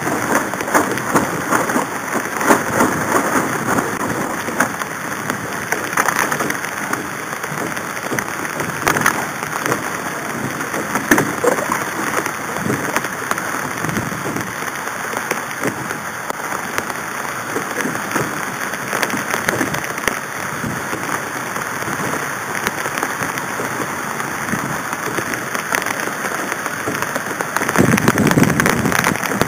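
Wind buffeting a small camera microphone on a sailing catamaran, with water splashing and slapping around the hulls as a steady, crackly noise. A stronger gust rumbles near the end.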